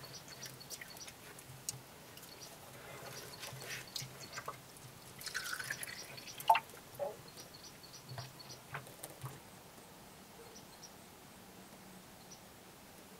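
Scattered drips and light knocks, the loudest about six and a half seconds in, over faint high chirping.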